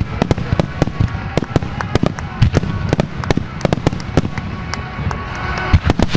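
Starmine fireworks display: a rapid, irregular string of aerial shell bursts and launch bangs, several a second, over a steady low rumble.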